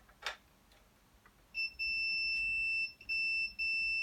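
Multimeter continuity beeper sounding a steady high beep, starting about one and a half seconds in with two short breaks, as the probes find continuity on a traced wire in the motorcycle's coil wiring loom. A single click comes shortly before it.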